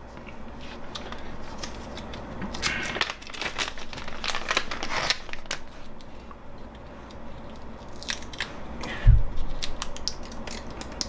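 Clear plastic zip-lock bag crinkling and rustling as a small silencer cap for a brass gasoline stove is unwrapped by hand, its sticker and wrapping peeled off. There is one dull thud about nine seconds in.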